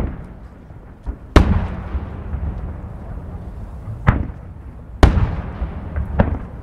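No. 7 (about 21 cm) aerial firework shells going off in a string of sharp booms, about five of them, the loudest about a second and a half in. Each boom is trailed by a low rolling rumble.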